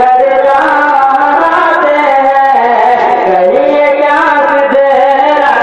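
A man singing a naat in Urdu, drawing out long held notes that bend up and down in pitch.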